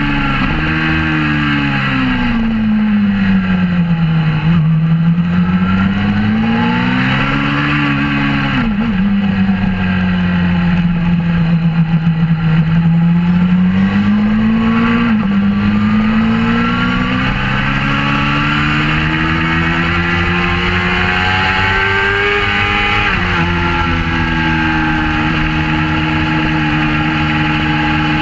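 Suzuki GSX-R600 K4 inline-four engine with an aftermarket Werx exhaust, heard from an onboard camera. The revs rise and fall with the throttle, and the pitch drops abruptly twice at gear changes, about a third of the way in and near the end.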